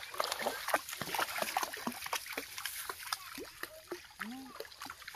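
A dog wading through shallow stream water, its legs splashing and sloshing in quick, irregular strokes that thin out after about three seconds. A brief voice-like call is heard about four seconds in.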